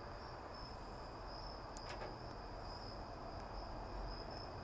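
Crickets chirping in a steady high trill, with a faint click about two seconds in.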